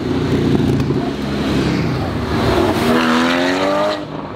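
Car and motorcycle engines running in traffic. About three seconds in, one engine revs up, its pitch rising for about a second.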